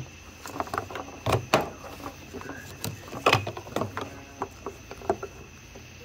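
Irregular small clicks, knocks and rustles of gloved hands handling plastic headlight bulb sockets and harness wiring, loudest about a second and a half in and again just after three seconds.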